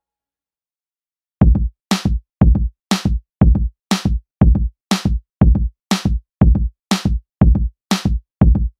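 Electronic drum-machine beat: a deep bass-drum hit and a bright snare-like hit alternate, about two hits a second, starting about a second and a half in after silence.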